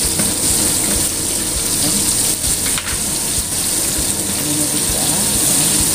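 Steady hiss of chicken frying in hot oil, with a few faint clicks.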